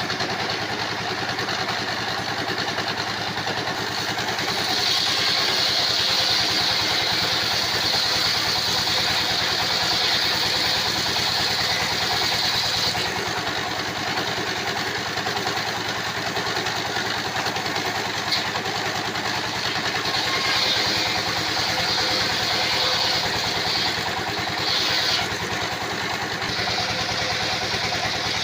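Engine-driven sawmill circular saw running steadily, with a high whine coming in about five seconds in and lasting roughly eight seconds, then again for several seconds near the end, as the blade cuts through timber.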